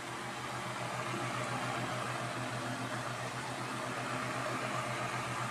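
Holmes Blizzard 8-inch table fan running on its high speed while oscillating: a steady rush of air over a low motor hum that pulses quickly and evenly.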